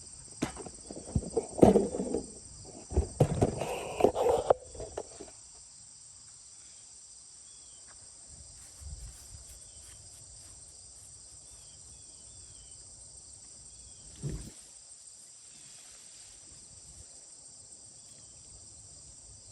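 Steady, high-pitched outdoor insect chorus. In the first few seconds it is overlaid by a run of loud knocks and rustling handling noise, and a single thump comes about halfway through.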